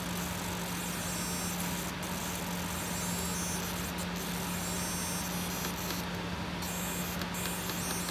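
A steady low hum under a faint even hiss, holding at one pitch with no other event.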